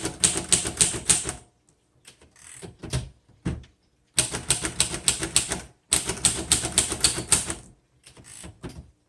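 1936 Royal Model O manual typewriter being typed on. Quick runs of key strikes clack against the platen, broken by a pause of about two and a half seconds with a few lone strikes early on, and a softer, sparser stretch near the end.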